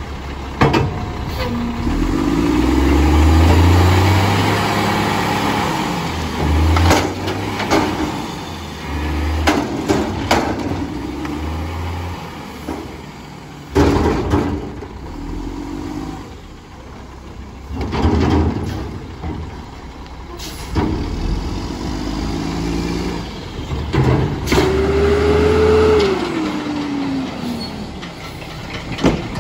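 Mack MR front-loader garbage truck's diesel engine revving hard in repeated surges, with several sharp bangs and clanks between them. Near the end a whine holds for about a second, then falls in pitch.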